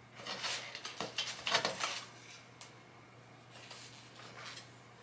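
A mascara tube and its packaging being handled and opened: a quick run of light rustles, scrapes and clicks in the first two seconds, then fainter small handling sounds.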